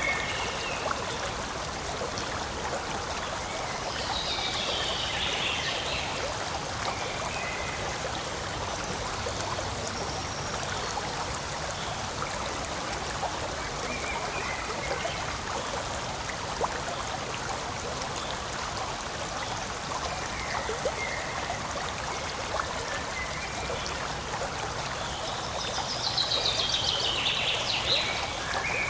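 Forest stream running steadily over rocks, a continuous rushing trickle. A few short chirps sound above it, with a longer descending series about four seconds in and again near the end.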